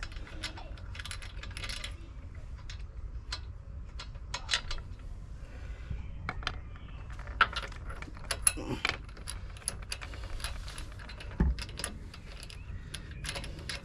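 Irregular metallic clinks, clicks and sharp taps of hand tools and small fasteners being handled during bodywork on a car, with a few louder knocks.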